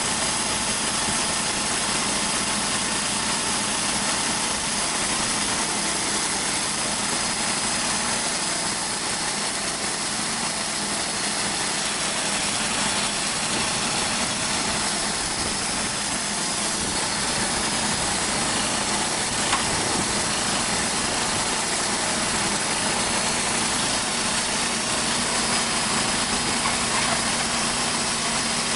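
Gas engine of a TimberKing portable sawmill running at a steady speed.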